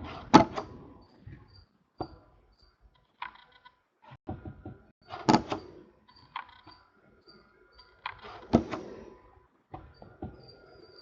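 Stiff Topps Chrome baseball cards being handled: sharp slaps and clicks as cards are moved and set down, with softer sliding between them; the strongest come near the start, about halfway through, and about three-quarters through.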